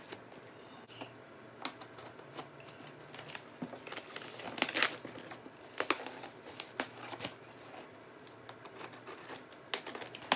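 Packing tape on a cardboard shipping box being slit with a knife and torn, with the cardboard flaps scraping and crinkling in irregular strokes, the loudest about halfway through.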